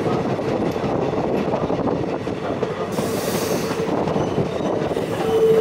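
Passenger train running along the track, heard from an open coach window: steady wheel-and-rail rumble with a held whine that grows louder near the end, and a brief hiss about three seconds in.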